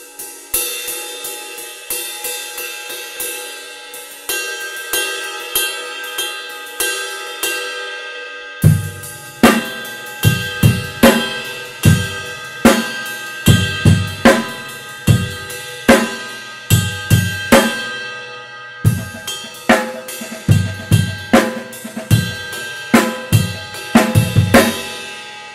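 A Krest HX 20-inch ride cymbal struck with a wooden drumstick in a steady ride pattern. For about the first eight seconds it plays alone; then bass drum and snare join in a beat under it, with a short break about two-thirds through. Near the end the drums stop and the ride is left ringing.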